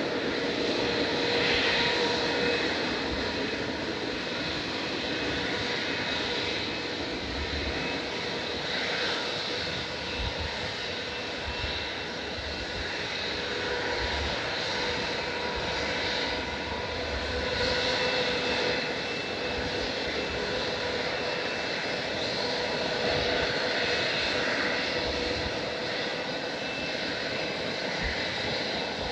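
Large jet airliner's engines running: a steady rush of engine noise with a few held whining tones, swelling and easing slightly over the stretch.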